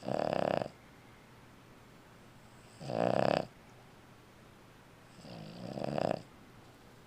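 An old Boston terrier snoring in her sleep: three snores about three seconds apart. The first two are short, under a second each; the third swells more gradually and lasts about a second.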